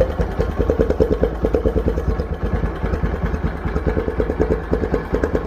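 Bajaj Discover 100cc motorcycle's single-cylinder four-stroke engine idling, with a fast, even run of exhaust pulses.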